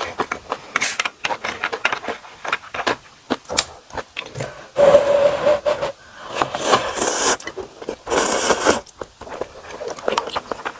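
Slurping instant ramen noodles into the mouth, with three long hissing slurps about five, seven and eight seconds in. Between the slurps come close-miked chewing and small clicks of chopsticks against the bowl.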